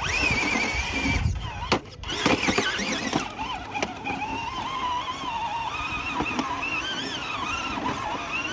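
Radio-controlled scale rock crawler's electric motor and gearbox whining, the pitch wandering up and down as the throttle is worked, with a few sharp clicks in the first few seconds.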